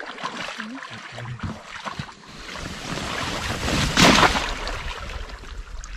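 Scattered knocks and clunks of gear on the boat, then a swelling rush of water sloshing and splashing around the raft at the creek's edge, loudest about four seconds in.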